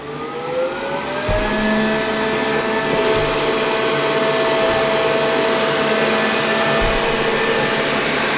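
Xiaomi S50 robot vacuum's suction fan spinning up with a rising whine over the first second and a half, then running at a steady pitch as the robot resumes cleaning.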